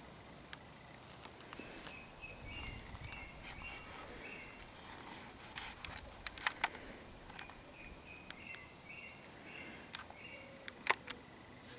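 Quiet outdoor ambience with two runs of short high chirping notes, and a few sharp clicks around the middle and near the end.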